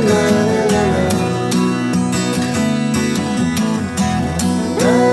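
Background music: strummed acoustic guitar with a gliding melody line over it, in a country or bluegrass style.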